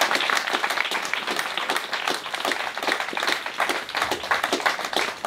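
Wedding guests applauding: many hands clapping in a dense, irregular patter.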